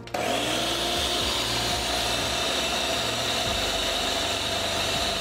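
Countertop blender switched on just after the start: its motor spins up with a short rising whine, then runs steadily at full speed, puréeing cooked spinach with its cooking water.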